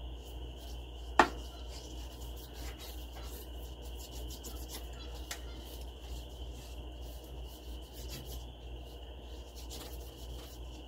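Soft rubbing and light scratchy sounds of a hand spreading wet coffee across a sheet of paper, with one sharp click about a second in. A steady low hum and a thin high whine run underneath.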